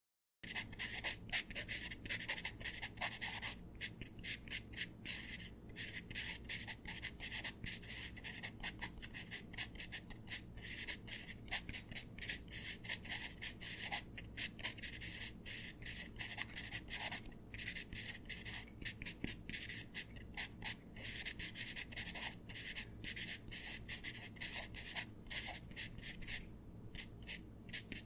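Pencil scribbling and writing on paper: quick, continuous scratchy strokes with brief pauses now and then.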